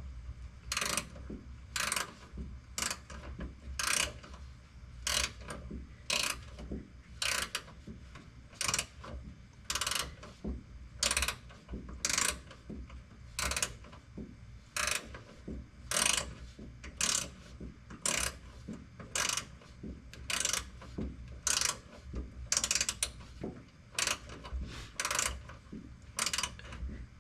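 Hand ratchet wrench being worked, its pawl clicking in a short burst on each back-swing, about once a second.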